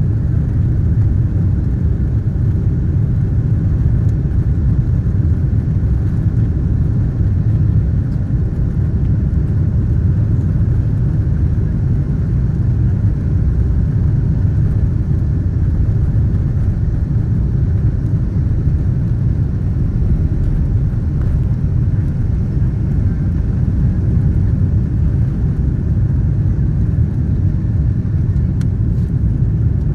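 Loud, steady low rumble of a jet airliner heard from inside the passenger cabin, engines at high power during the takeoff run or climb.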